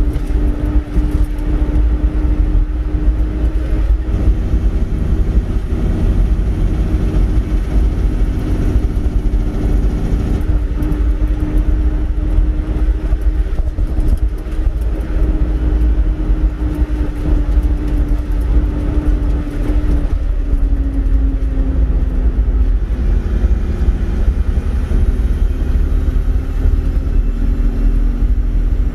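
Truck engine and gravel road rumble heard from inside the cab while driving along a dirt track. The engine note dips about two-thirds of the way through, then climbs again.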